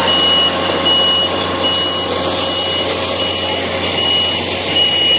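A vehicle's reversing alarm beeps a single high tone about once a second over a running engine.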